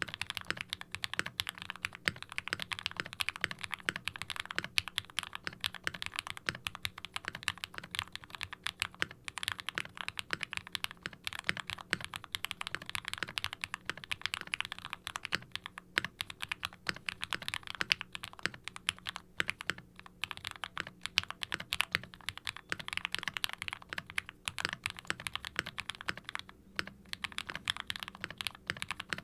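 Continuous fast typing on a tray-mounted 60% mechanical keyboard with linear frankenswitches (Gateron nylon bottom housings, polycarbonate tops, UHMWPE stems), foam-dampened with a brass weight: soft, muted clacks on each bottom-out, with a few brief pauses.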